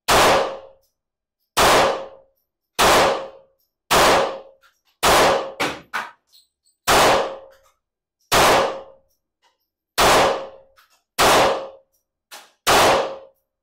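Handgun fired about ten single shots, a second or more apart, each a sharp crack with a short ringing tail.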